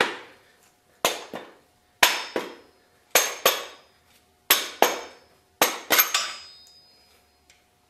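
A mallet tapping the main bearing caps on a Honda B-series engine block, in quick pairs of strikes about a second apart, each strike ringing briefly. The caps are being knocked loose after torquing for a Plastigauge bearing-clearance check, so they come off without disturbing the crank.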